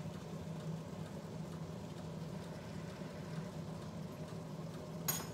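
Riced zucchini and heavy cream simmering faintly in a skillet over a steady low hum, with a light click near the end.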